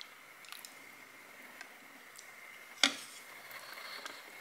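Wet, squishy mouth sounds of a person chewing saucy stir-fried instant noodles, with faint scattered clicks and one sharp click a little before three seconds in.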